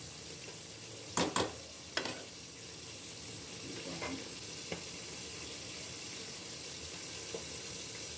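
Fried rice sizzling in a wok as a metal spatula stirs and turns it: a steady frying hiss, with a few sharper knocks of the spatula on the pan in the first two seconds and fainter ones later.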